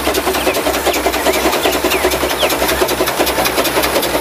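Small steam locomotive No. 7742 'Bello' running past, its exhaust chuffing in a quick, even beat over a steady hiss.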